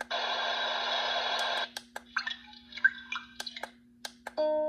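Ringtones from the built-in speaker of a Heimvision LED digital alarm clock, stepped through with its tune button. One ringtone plays for about a second and a half and cuts off suddenly, a few sharp button clicks follow, and near the end a new tune with clear notes starts.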